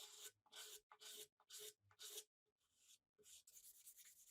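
Near silence, with faint scratchy strokes repeating about three times a second for the first two seconds, then stopping.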